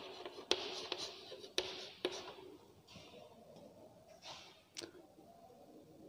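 Chalk writing on a chalkboard: scratchy strokes with several sharp taps of the chalk against the board for about the first two seconds, then it dies down to a few faint taps.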